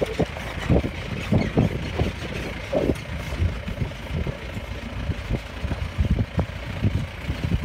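Safari jeep driving along a forest track: a steady low engine and road rumble with frequent irregular low thumps.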